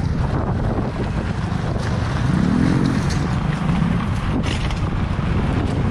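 Wind buffeting the microphone of a moving handheld camera: a heavy, steady low rumble. A brief pitched tone rises and falls a little past two seconds in.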